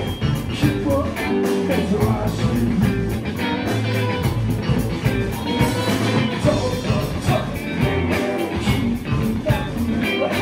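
Live rock band playing: distorted electric guitars, bass and drums with a steady beat, and a singer's voice over them.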